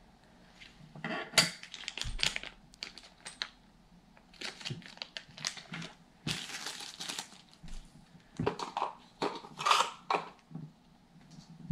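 Packaging being handled: plastic bags and paper inserts crinkling and rustling in irregular bursts, with sharp clicks and taps as small parts are set down on the table, the loudest about a second and a half in.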